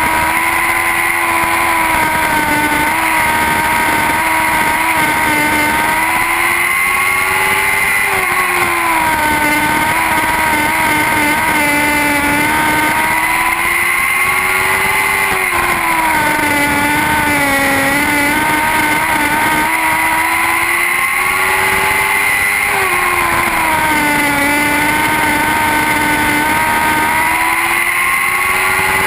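Lightning sprint cars' high-revving motorcycle engines running laps in a feature race. The engine pitch rises and falls in a regular cycle about every seven or eight seconds as the cars come around the track.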